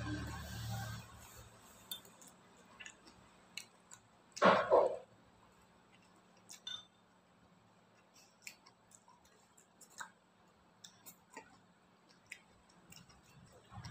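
A metal fork clicking and scraping against a noodle bowl while fried instant noodles are eaten, with soft chewing between the clicks. One louder, half-second rush of sound comes about four and a half seconds in.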